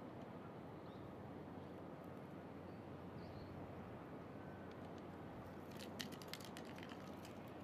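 Faint, steady rumble of a Boeing 777-300's jet engines at takeoff power, heard from far off, with a short cluster of sharp clicks about six seconds in.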